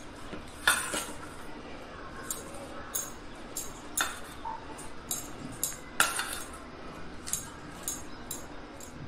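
A steel spoon stirring boiled sweet corn and chopped vegetables in a stainless steel bowl, clinking and scraping against the bowl's side at irregular intervals. A few clinks stand out louder than the rest.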